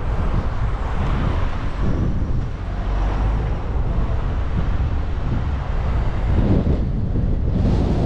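Wind rumbling on the microphone over street traffic. A car passes with a rising rush near the end.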